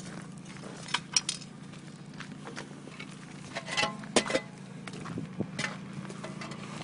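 Metal tow-strap hardware clinking against the underside of a pickup as the strap is hooked on: a few sharp clinks about a second in and another cluster around four seconds in, over a low steady hum.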